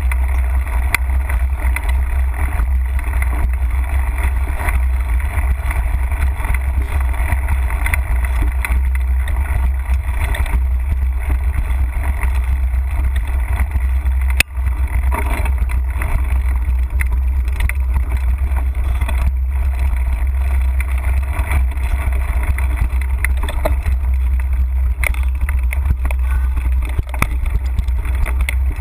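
Steady low rumble of wind buffeting a GoPro's microphone as a mountain bike rides a leaf-covered dirt trail, with the crunch and rattle of the tyres and bike over the ground.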